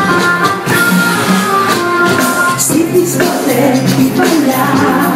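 Loud dance music with a singing voice, playing in a crowded discotheque.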